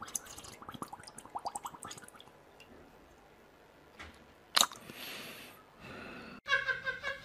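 Husky lapping muddy water, a quick run of short wet laps for about two and a half seconds. About four and a half seconds in comes one sharp snap, the loudest sound, followed by a brief hiss.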